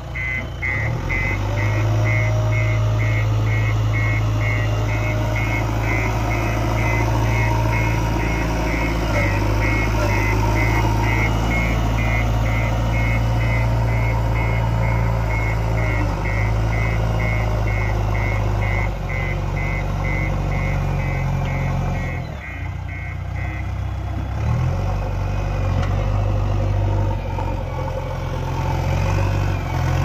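JCB 3DX backhoe loader's diesel engine running steadily as the machine works over loose soil, with its reversing alarm beeping quickly and evenly until it stops about two-thirds of the way through.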